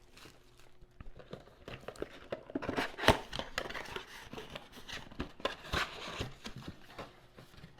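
Plastic wrapping crinkling and tearing as a sealed trading-card box is unwrapped and opened by hand: irregular crackles and rustles, the sharpest about three seconds in.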